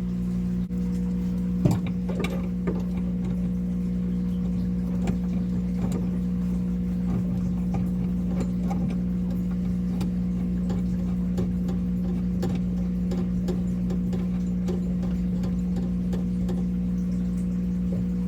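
Steady low hum of running equipment, with light clicks and ticks from hands handling fittings and wrapping Teflon tape onto threaded fittings.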